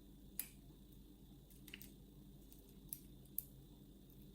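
Near silence with a few faint, sharp metallic clicks, the strongest about half a second in and again near the end: lock-picking tools and a Brisant euro cylinder being handled.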